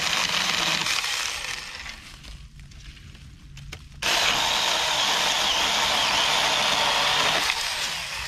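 Small battery-powered mini chainsaw cutting through overhead tree branches, in two runs: a short cut that fades about a second in, then a longer, steady cut from about four seconds in that winds down near the end.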